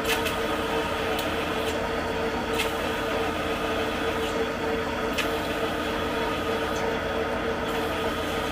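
Metal lathe running steadily at about 200 RPM while a nitride-coated drill bit in the tailstock chuck is hand-fed into a rifle barrel, pre-boring the chamber. A steady hum with one constant tone, broken by a few light ticks.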